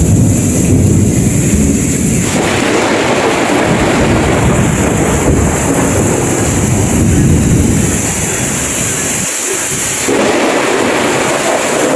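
Heavy rain pouring steadily, with a low rumble of thunder in the first two seconds or so.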